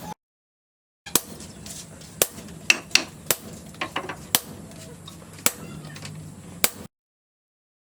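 A series of sharp, irregular taps and knocks, about a dozen over roughly six seconds, over a low steady workshop background. The sound starts and stops abruptly at edits.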